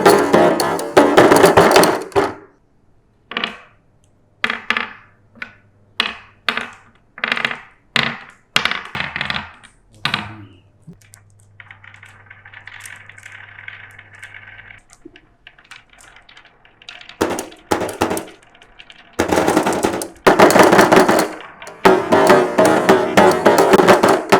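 Marbles running down a marble-run track: dense clattering at the start, then a string of separate sharp clicks about once a second, a soft rolling hiss in the middle, and heavy clattering again near the end.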